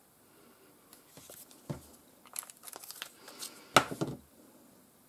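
Paper and die-cut vellum crinkling and rustling under the fingers on a table, in short irregular scrapes and clicks. One sharper knock just before four seconds in, as the plastic liquid-glue bottle is set down.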